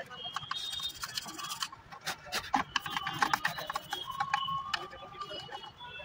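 Metal pick scraping and prying along the plastic microwave control panel, in irregular scratches and clicks, as the old membrane keypad's residue is worked off to fit a new keypad.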